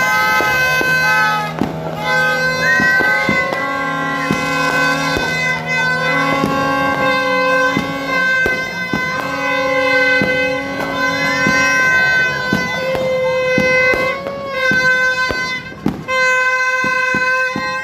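Music with long, held reedy notes over a bass line that steps from note to note, broken by many short clicks.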